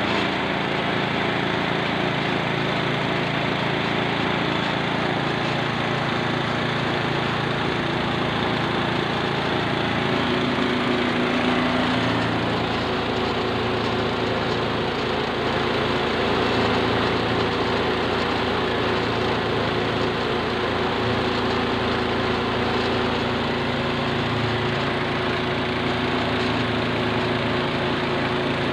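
Small petrol engine running steadily at constant speed, belt-driving a mini rice mill that is milling rice.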